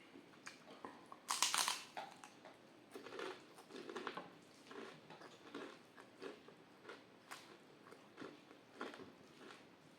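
Close-miked chewing and mouth sounds of someone eating a rice meal, with short wet smacks every half second or so and one loud crunch about a second and a half in.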